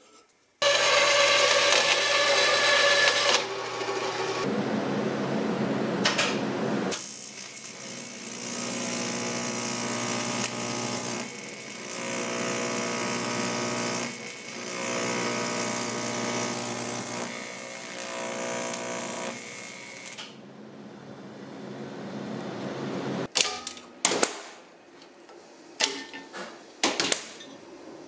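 Electric arc welding on a 5 mm aluminium bracket: a steady buzzing arc that strikes suddenly about half a second in, shifts in tone a few times, breaks off briefly now and then and stops about 20 seconds in. A few sharp metallic knocks and clanks follow near the end.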